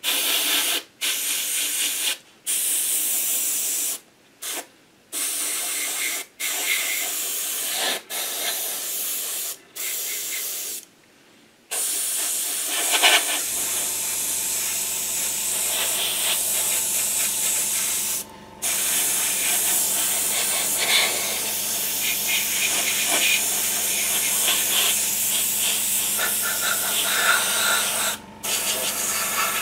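Airbrush spraying a very thin, wet coat of thinned paint: a hiss in short bursts of a second or two with sudden gaps as the trigger is pulled and let go, then spraying steadily through the second half. A low steady hum joins about halfway through.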